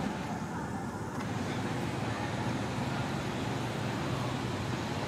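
Steady outdoor background noise, a distant traffic hum with no distinct calls or knocks.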